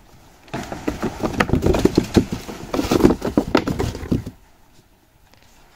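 Juvenile vervet monkeys scrambling about close to the microphone: a rapid jumble of knocks, scuffs and rustles that starts about half a second in and dies down about four seconds in.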